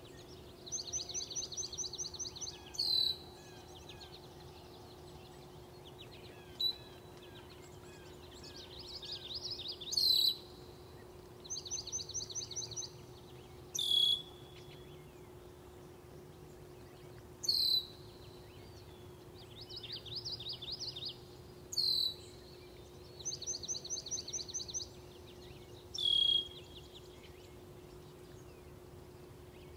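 Songbirds singing at dawn: a rapid trill of evenly spaced high notes lasting a second or two, and a loud, sharp downslurred note that recurs every three to four seconds, often right after the trill.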